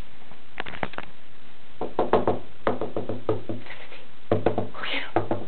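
A few sharp knocks, as if rapping on wood, in short groups.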